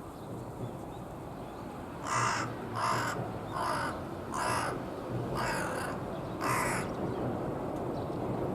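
Carrion crow cawing six times in a row, about one call a second, each call short and hoarse.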